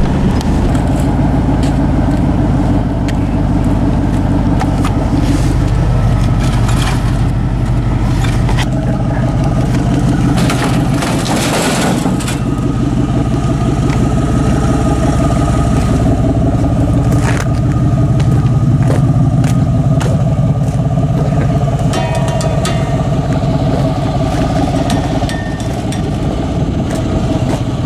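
Vehicle engine and road noise heard while driving, a steady low hum whose pitch shifts now and then, with scattered rattles and knocks.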